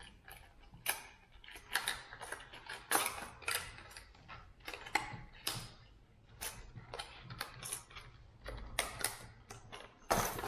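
Irregular clicks and clatter from a hard-plastic fishing lure and its packaging being handled, some clicks coming in short clusters.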